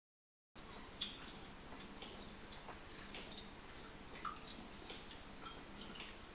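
Silence for about half a second, then irregular soft wet clicks and ticks of chewing and mouth sounds playing from the installation, over a faint steady hum.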